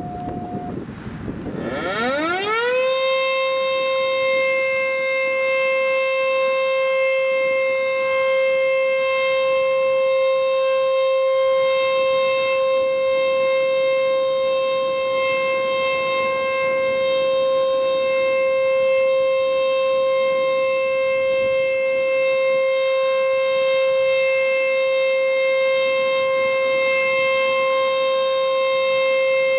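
ACA Screamer outdoor warning siren sounding a test: it winds up quickly about two seconds in, then holds one steady, high single tone.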